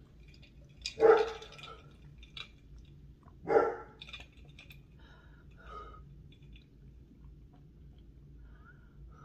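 A person's short, loud bark-like vocal outbursts, twice, about one and three and a half seconds in, the reaction to the burning heat of an extremely hot chili chocolate bar. Small brief whimpers and faint sipping through a straw follow.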